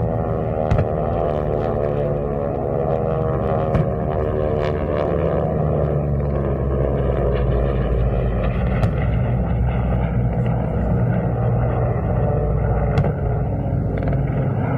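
Piston aircraft engine passing by, its pitch falling over the first few seconds, over a deep steady rumble, with a few sharp bangs from the pyrotechnic explosions.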